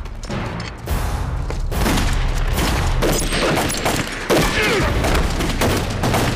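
Film-soundtrack gunfire: many rifle and gun shots fired in quick, overlapping volleys, dense through most of the stretch.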